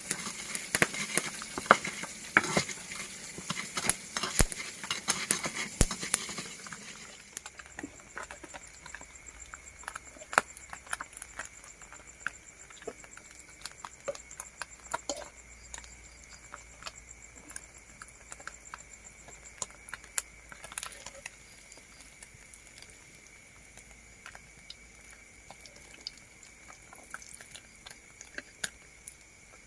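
Sambal ingredients frying in hot oil, crackling and popping densely for the first several seconds, then settling to scattered pops.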